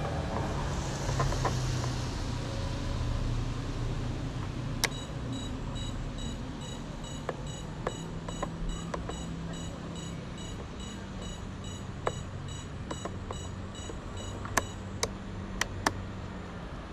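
Rapid, evenly repeated electronic beeping from a small piezo beeper in the FPV radio gear. It starts about five seconds in and stops near the end. A few sharp clicks come over a low steady hum.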